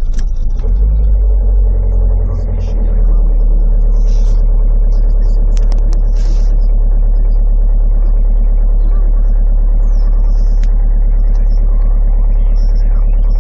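Renault diesel engine idling just after a cold start in frost, a steady loud rumble that steps up slightly about three seconds in and then holds.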